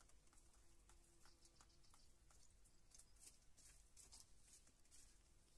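Faint, irregular light ticking and rustling of hens pecking at grain and scratching in wood shavings, busiest about three to four seconds in.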